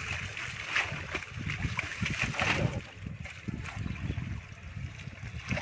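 Water sloshing and splashing in irregular bursts as people wade waist-deep and haul a fishing net through the river.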